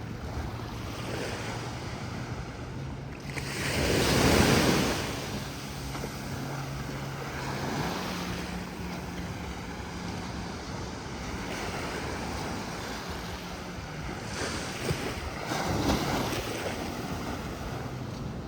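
Sea surf: waves breaking and washing in, with a loud wash about four seconds in and another near the end, over wind on the microphone. A faint low steady hum runs underneath.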